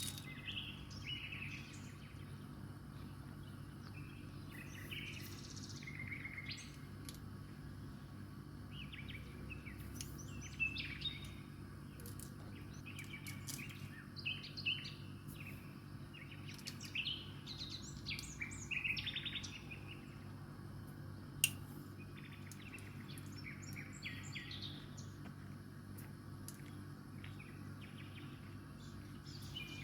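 Small birds chirping and twittering on and off over a steady low hum, with one sharp click about 21 seconds in.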